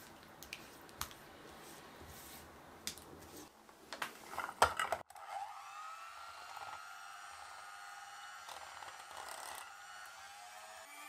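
A silicone spatula stirs and scrapes cream in a glass bowl, with a few sharp knocks about four to five seconds in. Then an electric hand mixer starts: its motor winds up to a steady whine as the beaters whip the cream.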